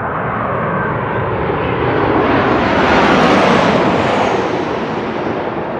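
An airplane passing low overhead: a loud engine rush that swells to a peak about three seconds in and then fades away.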